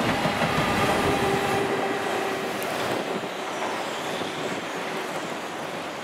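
JR Freight EF210 electric locomotive, working as the rear banker pushing a container train up a steep grade, passes close and draws away. Wheels rumble on the rails under a steady motor hum, and the sound fades as it goes.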